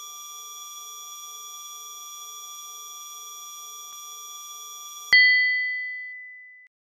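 Synthesized sound effect: a held electronic tone with a faint pulsing low note, cut off about five seconds in by a sudden bright ding that rings and fades away over about a second and a half.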